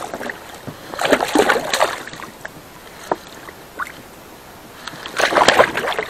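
A hooked pike thrashing and splashing at the surface beside an inflatable boat, in two bursts: about a second in, and again near the end.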